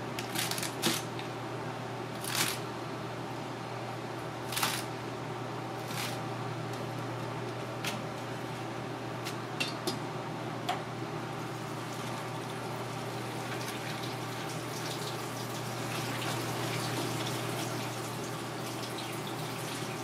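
Short knocks and clatter of cut greens being handled on a cutting board and dropped into a plastic colander, then a kitchen tap running water over the greens in the colander for the last several seconds, over a steady hum from the kitchen.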